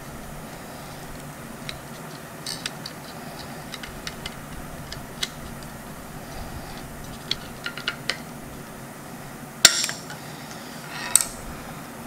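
Scattered small metallic clicks and clinks as pliers pry apart a rusty knife handle, its pinned rivets, and the parts knock on the steel work table, with two louder sharp clanks near the end.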